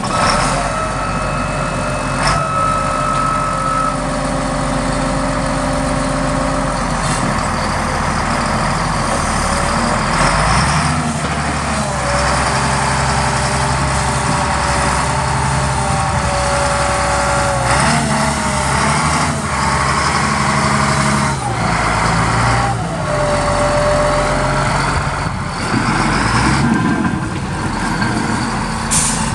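Caterpillar 140G motor grader's diesel engine running steadily, with a whine that shifts up and down in pitch several times as the machine works.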